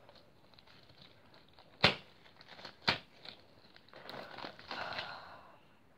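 Disposable gloves crinkling and rubbing as sticky borax slime is pulled off the fingers, with two sharp clicks about a second apart, about two and three seconds in, and a longer rustle near the end.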